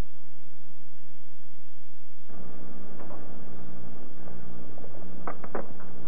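Videotape hiss with a steady hum, joined about two seconds in by indistinct background sound from the camcorder footage, with a few quick clicks near the end.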